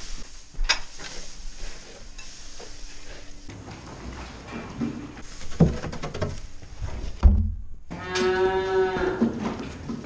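A dairy cow moos once, one drawn-out call lasting about a second and a half near the end. Before it, hay rustles as a pitchfork works it, with a heavy thump about seven seconds in.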